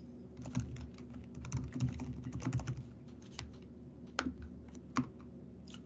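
Typing on a computer keyboard: a quick run of keystrokes for about three seconds, then a few separate clicks further apart.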